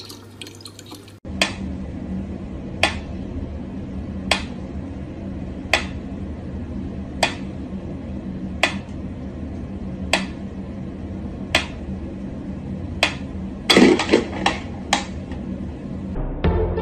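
Mechanical pyramid metronome ticking slowly and evenly, about one tick every second and a half, with a quick cluster of louder clicks and knocks near the end.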